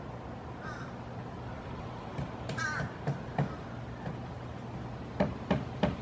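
Pileated woodpecker pecking at a weathered wooden fence: irregular sharp knocks, the loudest three coming quickly one after another near the end. A bird gives two short harsh calls in the first half, the second louder.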